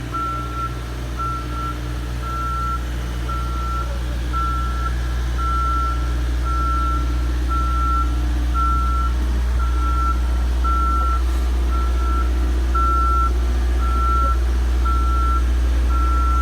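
Boom lift's motion alarm beeping about twice a second over the steady low drone of its engine while the boom is being moved.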